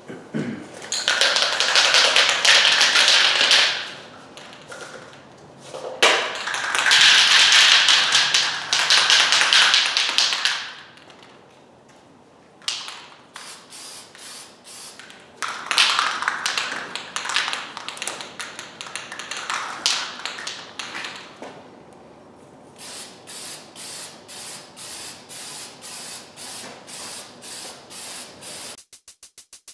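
Aerosol spray paint can hissing in three long bursts of several seconds each as a coat goes on. Near the end the can is shaken, its mixing ball rattling about twice a second.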